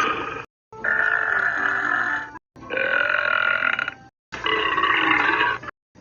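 A string of long, drawn-out belches: the end of one, then three more of about a second and a half each. They are separated by brief gaps of dead silence where they have been cut together.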